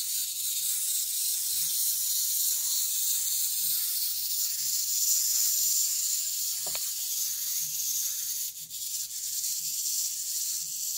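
Wind-up spring motor of a plastic clockwork elephant toy running, a steady high whirr from its fast-spinning gear train as the toy walks. There is one knock a little past the middle.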